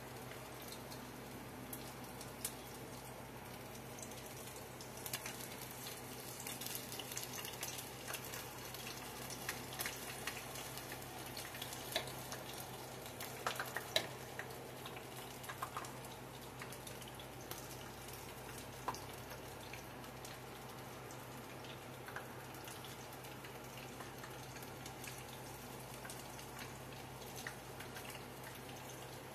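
Faint crackling of onion rings deep-frying in a pot of oil, with scattered light clicks of a fork stirring batter in a bowl, over a steady low hum.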